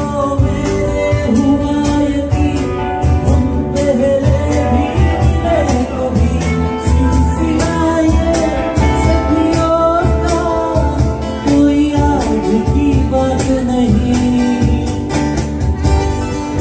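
Live band: a man singing into a microphone while playing an acoustic guitar, backed by electric bass and drums with a steady beat.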